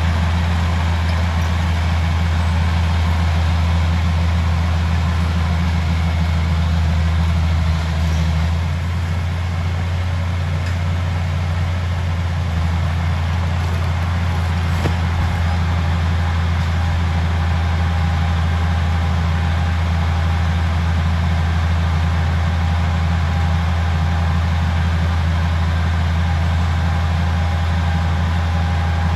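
Old bulldozer's diesel engine running steadily with a deep, constant hum, dipping slightly in level and pitch about eight seconds in.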